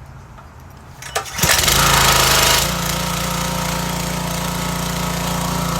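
Stihl gas pressure washer's small engine starting about a second and a half in, running louder for about a second, then settling into a steady run.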